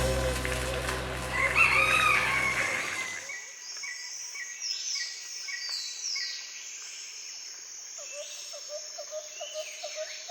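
Background music fading out over the first three seconds, with a single rising-and-falling call about two seconds in. Then small birds chirping, with quick high sweeping notes and, near the end, a run of short chirps at about four a second.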